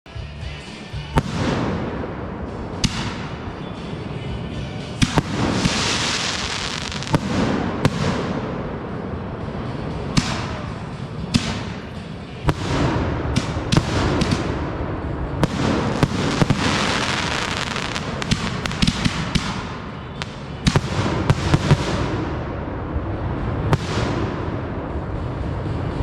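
A fireworks barrage: continuous crackling with many sharp bangs in quick succession, starting abruptly.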